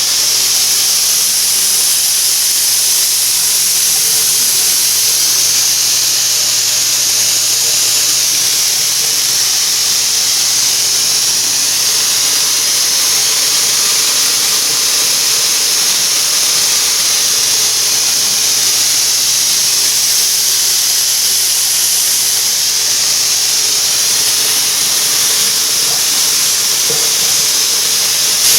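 High-pressure rain shower head running full, its water spray making a loud, steady hiss.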